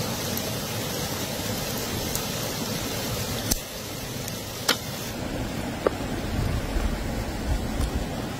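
Steady rush of a small stream, with a few sharp clicks. About five seconds in the sound changes: the hiss thins and a low rumble comes in.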